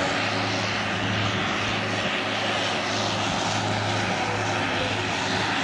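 Jetstream 41 airliner's twin Honeywell TPE331 turboprop engines running: a steady low drone under a loud, even rushing of propeller and engine noise.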